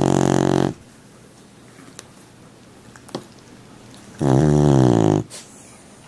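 An animal snoring: two loud, pitched snores, one trailing off just under a second in and another at about four seconds in, lasting about a second.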